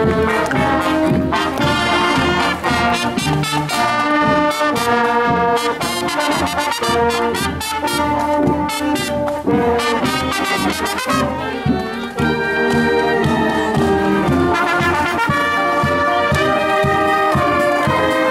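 Marching band playing a tune on the move: trumpets and sousaphone with saxophones, over a steady drum beat.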